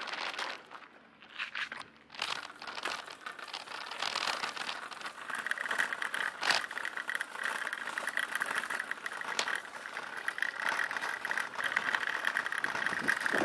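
Bike ridden over uneven brick paving, its frame and parts rattling continuously from about two seconds in.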